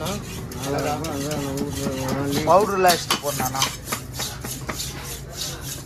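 A voice calls out in a long, drawn tone that sweeps upward near the end. A few short knocks and clatter follow, over a steady low hum.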